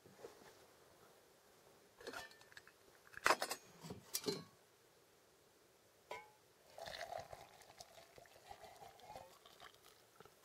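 Metal clinks of a lightweight camping pot's lid and wire handle being handled, the loudest about three seconds in. Then liquid pours from the pot into a cup for about two seconds.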